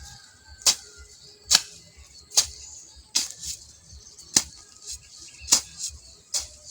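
A hand hoe striking and cutting into soil in a steady rhythm, about one stroke a second, some strokes doubled, with faint music underneath.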